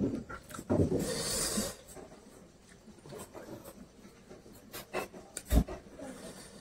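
Close-up chewing and mouth sounds of a man eating, with scattered small clicks. A breathy rush about a second in and a single thud near the end.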